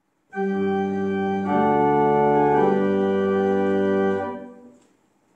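Church organ playing a short cadence of three held chords, the usual organ Amen after the opening words of the service when the liturgy is not sung. The chords stop about four seconds in and ring out briefly in the church.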